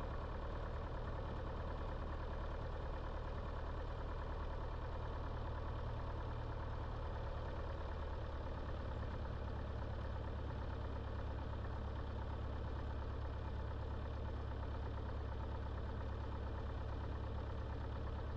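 A Grumman light airplane's four-cylinder piston engine and propeller running steadily at low power as it waits to take off.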